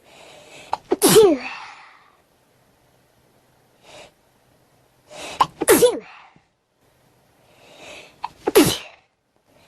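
A person sneezing three times, each sneeze a breathy intake that builds into a sharp voiced burst falling in pitch. The sneezes come about four and a half seconds and then three seconds apart, with a short breath between the first two.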